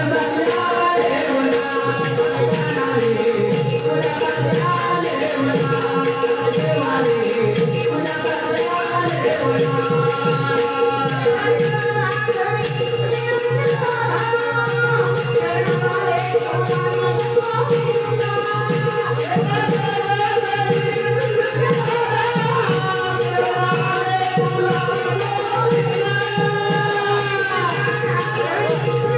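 Marathi devotional gavlan sung in bhajan style: a singing voice with bending, ornamented lines over a steadily held drone note, with jingling metallic percussion keeping an even beat.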